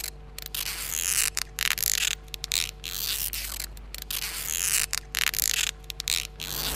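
Adhesive tape being pulled off the roll again and again in short rasping strips, about ten pulls of varying length, to fasten a paper poster to a pole.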